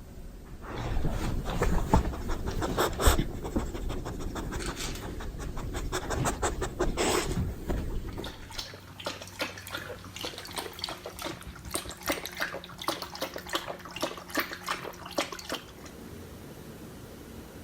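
A beagle panting in quick, rhythmic breaths that stop near the end.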